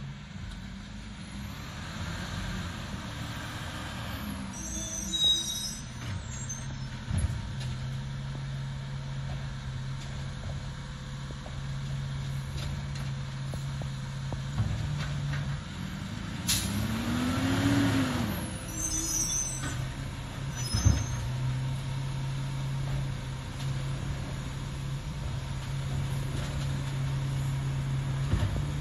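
Engine of an Autocar ACX refuse truck running steadily as it works along the street, revving up and back down about two-thirds of the way through, with a few short air-brake hisses and clicks.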